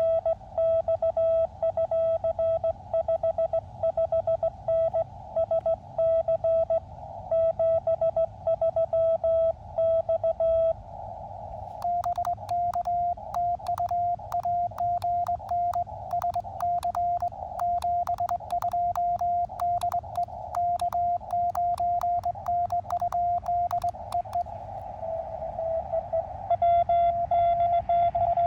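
Morse code on an Elecraft KX2 transceiver: the radio's clean sidetone as the operator sends on a sideswiper (cootie) key, then a replying station's slightly higher-pitched code coming through the receiver in band hiss, then the operator sending again near the end. Sharp clicks run through the middle stretch while the other station is heard.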